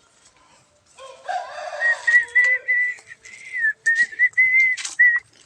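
Whistling: a long run of short, clear high notes, a few a second, wavering slightly in pitch, that begins about two seconds in. It is preceded by a brief, rougher call with several layered tones about a second in.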